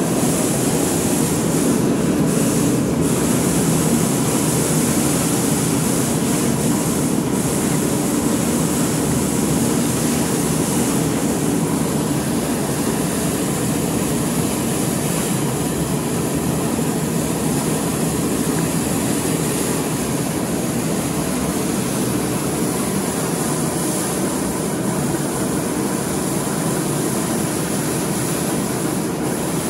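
Grain loader running steadily, its conveyor throwing grain waste up a chute into a truck bed. Continuous machine noise mixed with the hiss of pouring grain.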